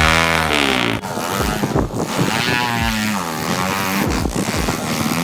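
2004 Suzuki DRZ110 pit bike's single-cylinder four-stroke engine revving hard, its pitch rising and falling again and again as the bike struggles for grip in deep snow.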